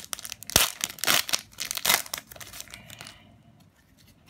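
Crinkling of a foil trading-card booster pack wrapper being handled. It comes in several loud bursts over the first two seconds, then dies down to light rustling.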